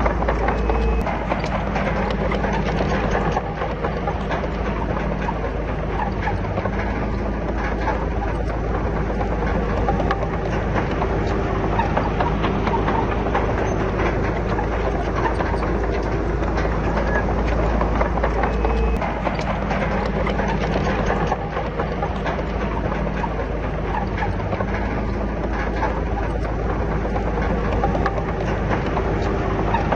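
Komatsu D31PX crawler bulldozer's diesel engine running steadily under load, with a steady clatter of knocks from its steel tracks and the pushed rock.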